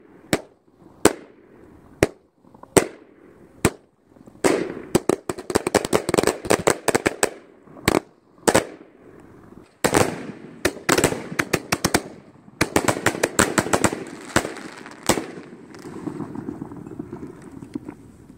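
Willow Explosion 500 g firework cake firing salutes and shells: single sharp bangs about a second apart at first, then three rapid volleys of many quick reports, trailing off into a fading scatter of small pops near the end.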